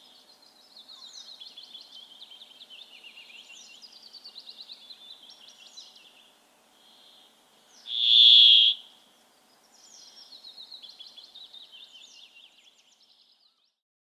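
Brambling song: one loud, nasal, buzzing note held for just under a second, about eight seconds in, with fast bird twittering before and after it.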